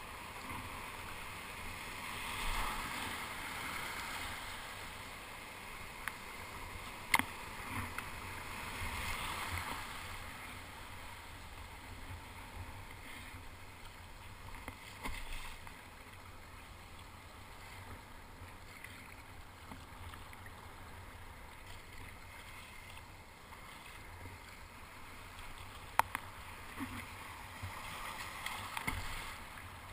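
Broken surf foaming and splashing around a kayak as it is paddled through white water, the wash swelling now and then with the strokes. Two sharp knocks stand out, about a quarter of the way in and again near the end.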